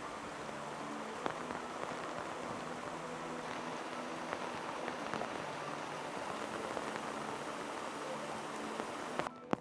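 Heavy rain falling steadily, with scattered sharper drop ticks. It cuts off abruptly near the end.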